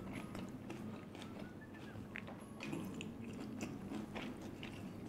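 Close-miked chewing and biting of food, with many small wet clicks and light crunches.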